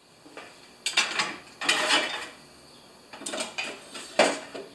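Steel tool chest being opened: the lid and its contents give metal clanks and rattles in four bursts, the sharpest a single clank near the end.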